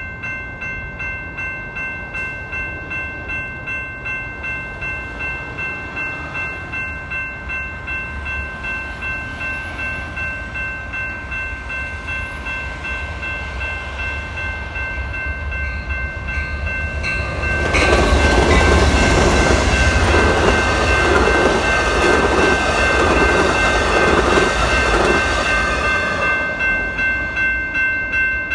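Railroad crossing bell ringing steadily in an even pulse. About two-thirds of the way through, a passenger train passes, and its loud rumble and rattle comes in suddenly and eases off near the end.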